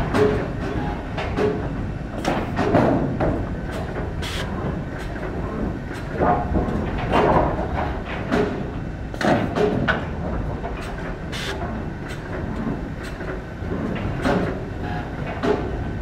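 Timber-processing line running, its conveyors and machinery making a steady mechanical noise. Wooden boards knock and clatter against each other and the machine at irregular moments, every second or two.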